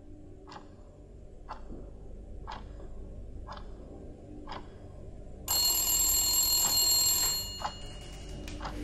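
An old-fashioned telephone bell rings, a loud burst of about two seconds starting about five and a half seconds in, then dies away. Beneath it a clock ticks about once a second.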